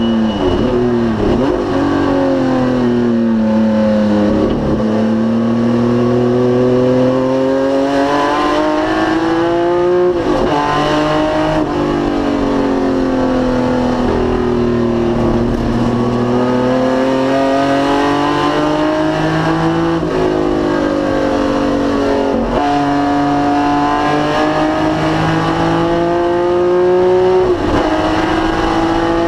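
1973 BMW CSL Group 2 race car's straight-six engine at racing speed. The note sinks slowly as the car slows, then climbs under acceleration, with sudden steps down in pitch at several gear changes.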